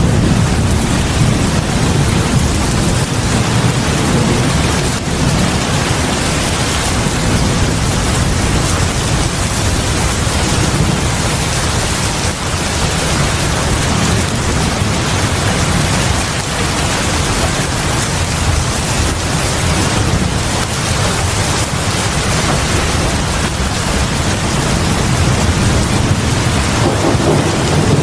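Heavy rain pouring steadily onto a porch and the ground in front of a house, a dense even hiss with a deep low rumble underneath.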